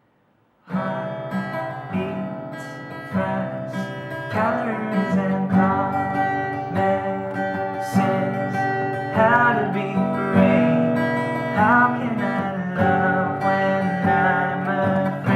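Acoustic guitar strummed in steady chords, starting abruptly about a second in: the opening of a song.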